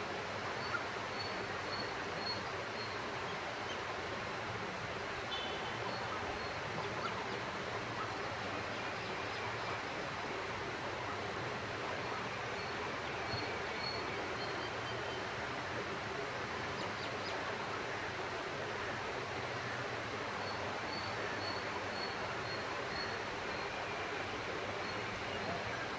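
Steady outdoor background hum with faint, high, short bird chirps in rows now and then. A thin high buzz comes and goes in stretches of four or five seconds.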